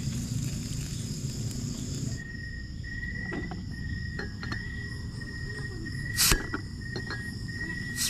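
Insects trilling steadily in woodland, with a low rumble that cuts off abruptly about two seconds in. After that a steady high trill sets in, broken by several sharp clicks and knocks, the loudest one about six seconds in.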